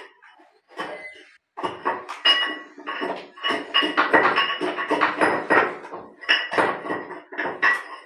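A gloved hand scraping and scooping grit out of the water in the trap of a ceramic Indian squat toilet pan: a run of uneven scraping strokes against the porcelain, several a second. The grit is cement cutting debris that has blocked the trap.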